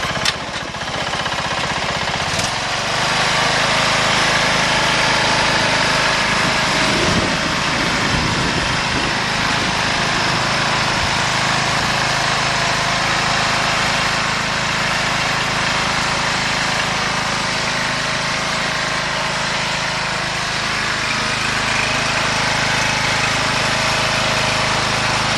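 Riding lawn mower engine running steadily, getting louder about two and a half seconds in and then holding.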